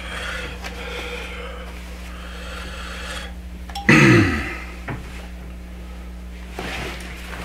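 Steam iron sliding back and forth over cotton quilt fabric, a soft steady rubbing, to press a seam flat from the front. About four seconds in there is a brief, louder sound that falls in pitch.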